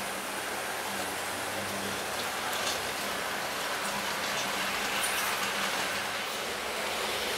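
H0-scale model freight train of Märklin/Trix Wascosa tank wagons rolling along the track. There is a steady rolling hiss with a faint motor hum and a few light clicks of wheels over rail joints.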